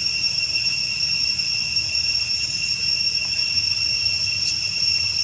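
Steady, high-pitched insect chorus droning at several pitches at once, with a low rumble underneath and a single faint click about four and a half seconds in.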